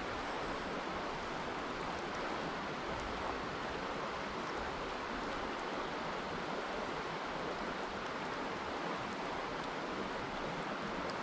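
Steady rush of a shallow creek running over rocks.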